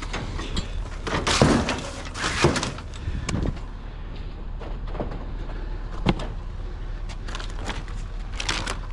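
Knocks and clanks of scrap being handled: metal folding chairs and junk shifted on a pickup load, then items moved about in a curbside trash bin. A handful of separate bangs, the loudest in the first two seconds, over a steady low hum.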